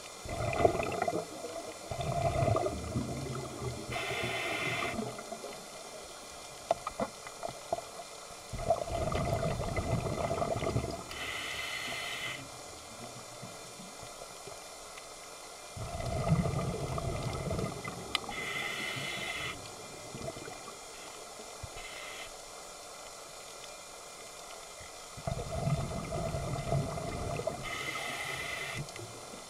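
Scuba diver breathing through a regulator: four breaths about eight seconds apart, each a bubbling burst of exhaled air followed by a short hiss on the in-breath.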